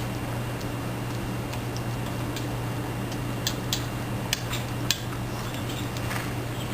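Wood fire under a fish-boil kettle crackling, with a handful of scattered sharp pops over a steady low hum.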